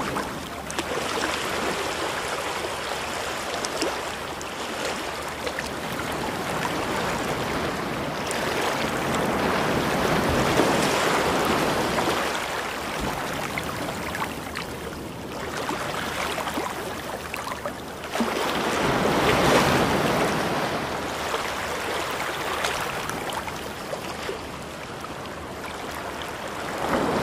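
Ocean surf washing up the sand at the water's edge: a steady rush of small breaking waves and foam that swells louder twice and eases in between.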